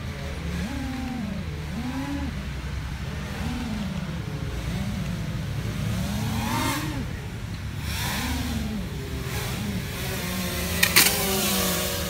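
FPV quadcopter's brushless motors and propellers whining, the pitch rising and falling over and over as the throttle is worked. A short sharp crackle near the end.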